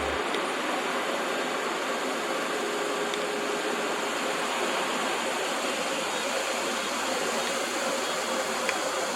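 Steady, even rushing noise with no rhythm and no engine note underneath.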